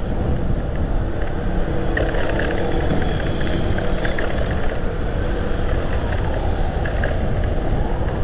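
Steady road noise heard from a motorcycle riding through city traffic: a continuous low rumble of wind over the microphone, the bike's engine and the surrounding vehicles.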